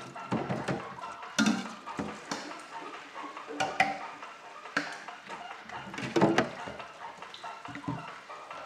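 Washing up in a stainless steel sink: plastic bowls and a pot knocking and clattering against the sink and each other at irregular intervals, over running tap water.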